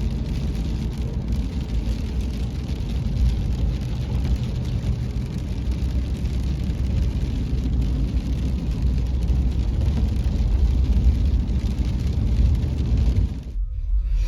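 A vehicle driving with a steady low rumble from its engine and running gear, which cuts off abruptly near the end.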